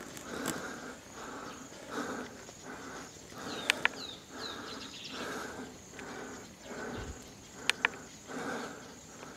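A hiker's heavy, rhythmic breathing while resting after a steep climb with a loaded backpack: in-and-out breaths about every half to three-quarters of a second. About a third of the way in and again near the end come a pair of sharp clicks. Short, quick high chirps come a few seconds in.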